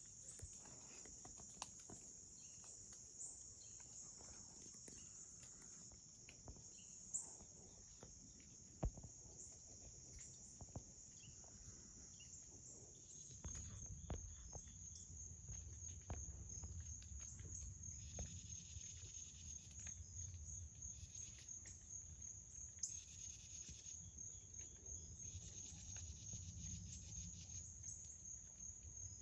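A faint insect chorus of crickets, one steady high-pitched chirring that turns into a rapid, even pulsing about halfway through. There are a few soft clicks, and a low rumble enters at the same point.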